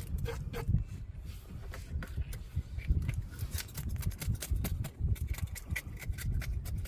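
Fish being scaled with a knife: a run of short, irregular scrapes and clicks as the blade strips scales off tilapia, over a low rumble.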